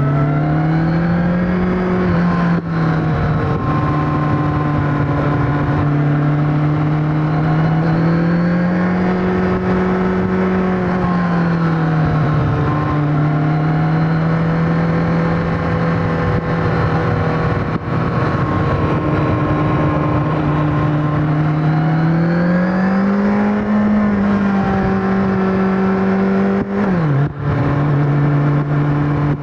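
2021 Kawasaki Ninja 1000SX inline-four engine and exhaust running under way at riding speed. The engine note rises and eases gently a few times, with a brief sharp dip and recovery near the end. Wind noise on the microphone runs under it.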